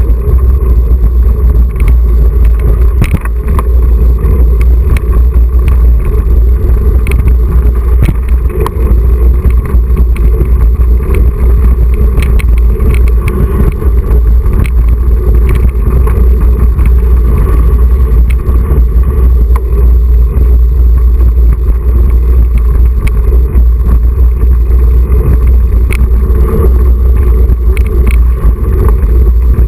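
Mountain bike ride through a wet concrete storm water drain, heard on a bike-mounted GoPro: a loud, steady rumble of wind and vibration on the camera, with tyres running through shallow water and scattered sharp knocks and rattles.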